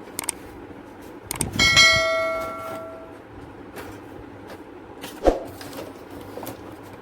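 Knocks and clicks of a thin sheet-steel computer cabinet side panel being handled and fitted. One knock about two seconds in sets the metal ringing like a bell, fading over a second or so.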